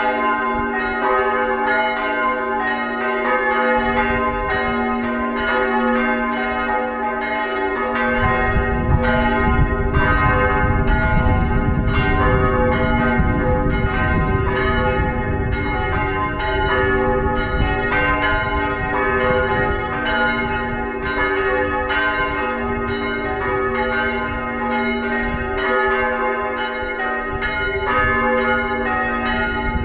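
The church's four bells swinging in a full peal, their strokes overlapping into a continuous, dense clangour. A low rumble runs underneath for several seconds in the middle.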